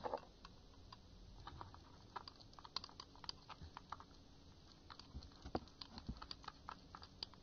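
A pen stirring a soft-soap and salt slime mixture in a small glass bowl: faint, irregular clicks and taps of the pen against the glass.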